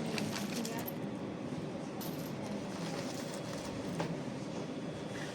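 A few light metallic clinks and taps, about a second in, two seconds in and four seconds in, over steady background noise.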